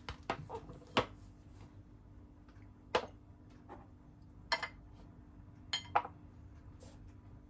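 Ceramic plates and small dishes being set down on a wooden tray: about half a dozen scattered clinks and knocks.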